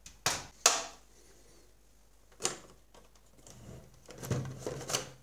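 Plastic clicks and knocks of an IBM PC Convertible laptop being handled: two sharp clicks at the start and another about two and a half seconds in, then a cluster of rattling knocks near the end as the hinged LCD display is folded down.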